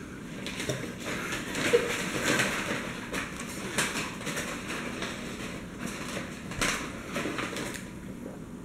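Yellow paper burger wrapper crinkling and rustling as it is handled, a run of irregular sharp crackles.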